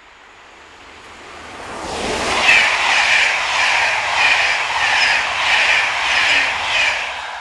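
Electric-locomotive-hauled train of Corail passenger coaches passing at speed close by. The sound swells over the first two seconds, then the coaches' wheels beat out a steady rhythm of about three strokes every two seconds, easing off near the end.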